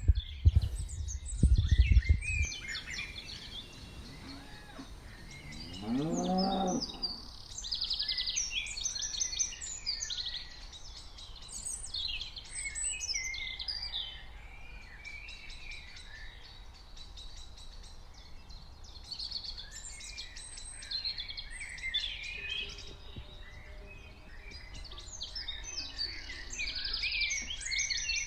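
A cow moos once, a single long call about six seconds in, over almost continuous birdsong chirping. A few low thumps come in the first two seconds.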